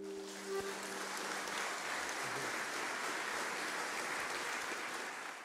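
Audience applauding steadily after a song ends, while the last held musical note dies away in the first second.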